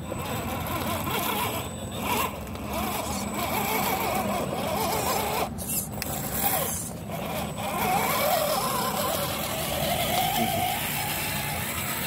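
Electric motors and gearboxes of RC scale crawler trucks whining as they climb a dirt trail, the pitch rising and falling with the throttle.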